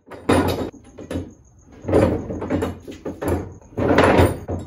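A heavy glued-up red oak panel is shoved and slid across a workbench covered in pipe clamps. There are several bursts of wood scraping and knocking against the bench and the metal pipes, the loudest about two and four seconds in.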